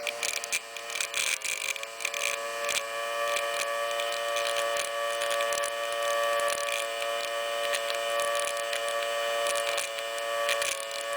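Miniature five-port PVC air raid siren, its chopper spun by a small electric motor, sounding a steady high whine made of several tones. There are scattered clicks in the first few seconds, and the pitch sags briefly near the start and again near the end.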